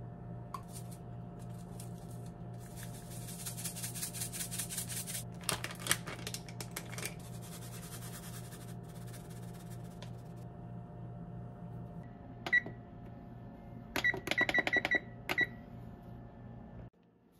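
Dry spices shaken out over raw chicken pieces in a ceramic baking dish, then a Frigidaire electric oven's control panel beeping: a single beep, then a quick run of beeps and one more as the keys are pressed to set the oven to 380°. A steady low hum runs underneath.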